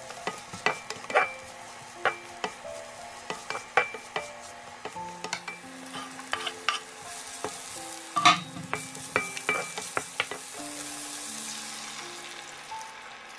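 Garlic and shiitake mushroom slices sizzling in olive oil in a nonstick wok, with a wooden spatula knocking and scraping against the pan many times; the loudest knock comes a little past the middle. Near the end almond milk is poured in and the hiss grows.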